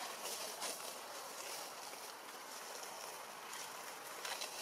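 Steady outdoor background noise, a hiss strongest high up, with a few faint clicks in the first second.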